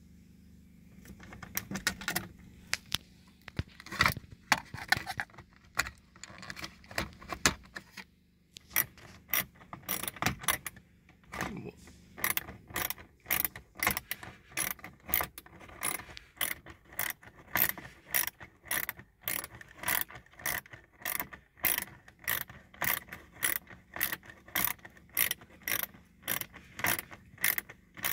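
Hand ratchet and socket clicking as a bolt is driven back into a dashboard trim bracket. At first the clicks are irregular, with a few louder knocks. From about eight seconds in they settle into a steady run of clicks, about two a second, as the bolt is turned in.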